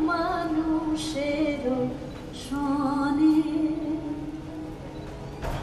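A child singing a solo song in melodic phrases with long held notes, with a short break about two seconds in.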